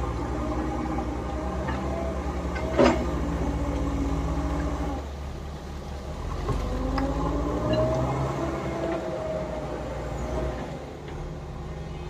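Diesel engines of a JCB backhoe loader and a tracked excavator working, the engine note rising and falling under hydraulic load. A single loud knock about three seconds in.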